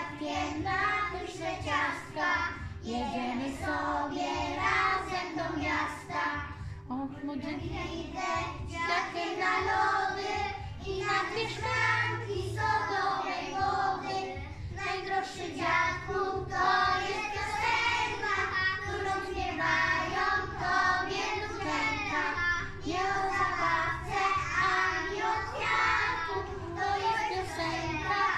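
A group of young preschool children singing a song together.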